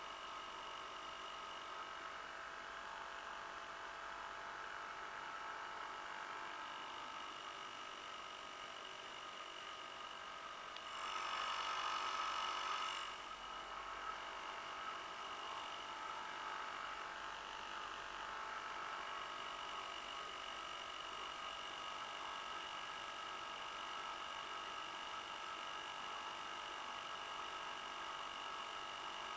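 A 50-year-old Johnson 2 hp Seahorse two-stroke outboard running steadily with an even whine, pushing the canoe along. It grows louder for about two seconds near the middle, then settles back.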